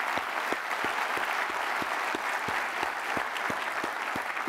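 Audience applauding steadily, with many single claps standing out, thinning slightly near the end.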